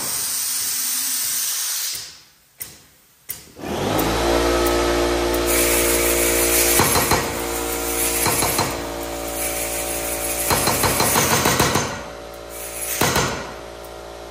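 Compressed air hisses as the hose is coupled to a shop-built 15-pound pneumatic power hammer. A small air compressor then starts up and runs with a steady hum while the hammer, worked by its foot treadle, cycles in short runs of knocking blows, the fastest run near the end.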